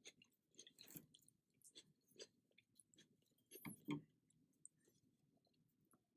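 Faint close-up chewing: soft wet mouth clicks and smacks as a person chews food, with two louder chews a little past halfway.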